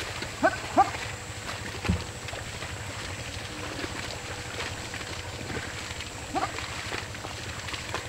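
A pair of water buffalo hauling a plough through flooded paddy-field mud, with a steady wash of sloshing and scattered splashes. Two short rising calls come about half a second apart early on, a low thump follows about two seconds in, and two more short rising calls come a little after six seconds.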